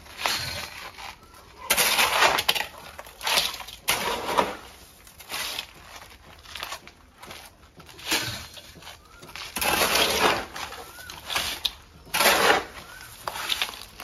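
A hand hammer breaking up stone and concrete, with irregular cracking and crunching strokes, the loudest about two seconds in and again around ten and twelve seconds in, as broken pieces are pried loose.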